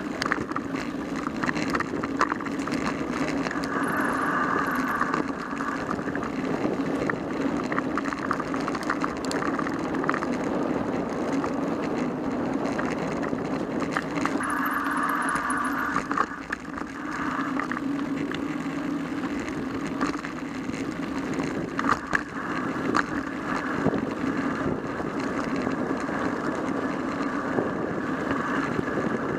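Mountain bike ridden along a dirt trail: a steady rumble from the tyres with frequent rattling clicks over bumps. A higher buzz comes in for a few stretches.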